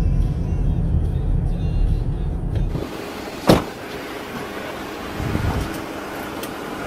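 Steady low rumble of a car driving, heard from inside the cabin, which cuts off about three seconds in to quieter outdoor noise with wind. A single sharp knock follows about half a second later, and a softer thump near the end.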